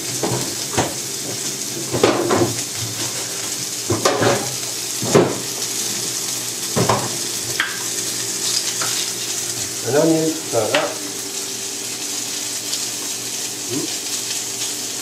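Crumb-coated chicken breasts frying in a pan, a steady sizzle, while a knife knocks irregularly on a wooden chopping board as an onion is cut.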